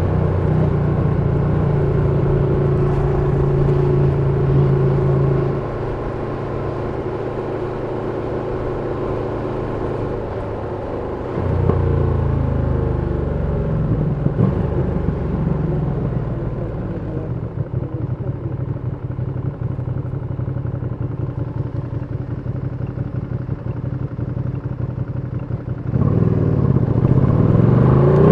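Ducati Panigale V2's 955 cc Superquadro L-twin engine in city riding. It runs steadily, drops off about five seconds in, and picks up again midway. It then settles into an uneven, pulsing low-rev beat before stepping up near the end into a rising rev as the bike accelerates.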